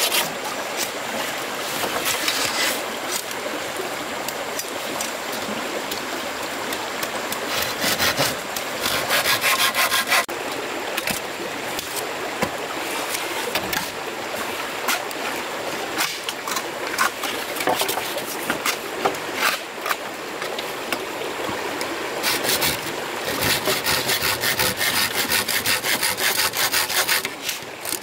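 A hand tool working wood in fast, regular back-and-forth strokes, going on throughout. It is louder and more even in spells about eight seconds in and again from about twenty-three seconds on.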